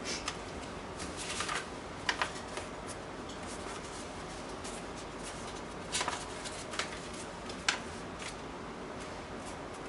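Stiff yellow card paper being folded and handled by hand: scattered short rustles and crisp crackles over a steady low hiss. A sharper snip from scissors cutting the paper comes near the end.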